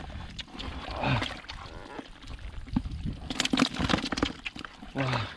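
Live catfish slapping and splashing as they are tipped from a woven bamboo basket into a plastic bucket, with many short wet knocks and clicks and a denser clatter about three and a half seconds in.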